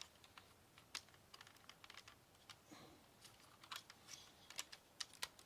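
Faint, irregular clicks and taps of hard plastic toy parts being handled and fitted together on a transformable Toyworld Bulldozer figure.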